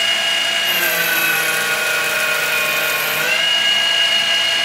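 TOS FN20 milling machine dry face-milling a small steel part with a Tungaloy face mill: a steady spindle whine. About a second in, the pitch sags slightly and a high-pitched hiss joins for about two and a half seconds as the cutter passes over the part, then the whine returns to its former pitch.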